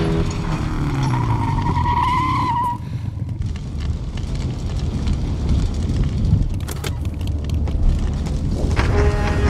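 Action-film sound effects after a large explosion: a motorcycle engine with a wavering tyre squeal for the first few seconds, then the steady low rumble of a big fire with crackles and debris, and music coming in near the end.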